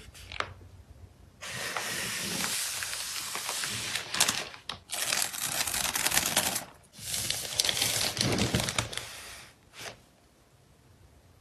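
Crinkling and rustling of plastic and paper packaging being handled for packing photocards, in three long stretches dotted with small clicks, with a single short click near the end.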